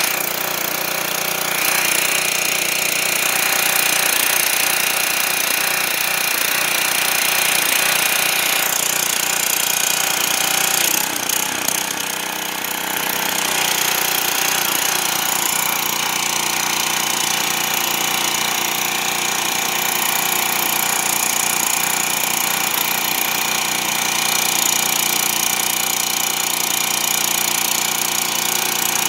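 Craftsman gas pressure washer running steadily under load, its engine drone mixed with the hiss of the high-pressure spray striking a snowplow blade.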